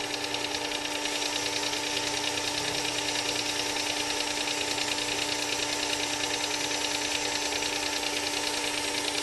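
Work Sharp WS3000 tool sharpener's electric motor running steadily, driving the 6000-grit sharpening belt, with a steady hum and a fast flutter. It settles to full speed in the first second or so.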